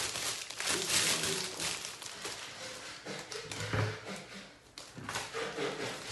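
Kitchen handling sounds: irregular rustling and rubbing with a few small knocks, a sharp click at the very start.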